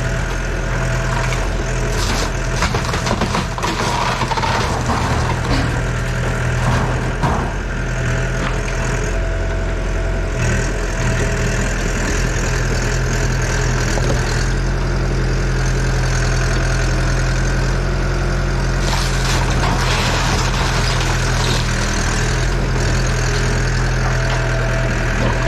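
Diesel engine of a Yanmar Vio80 excavator running steadily, with irregular clanks and knocks, mostly in the first several seconds and again late on.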